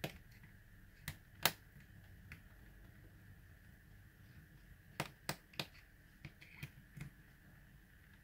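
Sharp plastic clicks and snaps from hands handling the body of a Cfly Faith (Eachine EX4) folding mini drone: a few isolated clicks, the loudest about one and a half seconds in, then a quick run of them between about five and seven seconds in.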